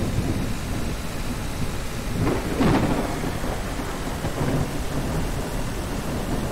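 Steady rain hiss with a low rumble of thunder that swells about two seconds in and fades over the next second.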